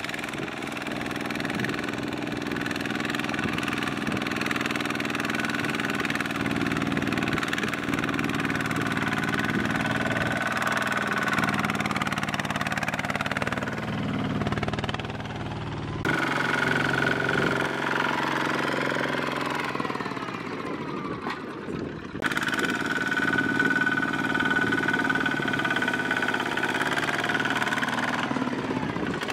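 Single-cylinder Kubota diesel of a two-wheel walking tractor running steadily under load as it hauls a trailer of rice sacks through mud and over dirt, with the wheels churning mud. The sound changes abruptly twice, about halfway through and again a few seconds later.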